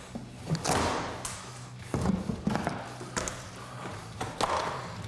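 A wooden door frame being pried and knocked out of its opening: a series of irregular thumps and cracks of wood giving way.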